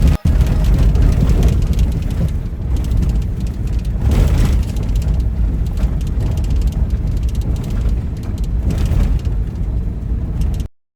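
Heavy low rumble of a motor vehicle on the move, steady with a swell about four seconds in, cutting off abruptly near the end.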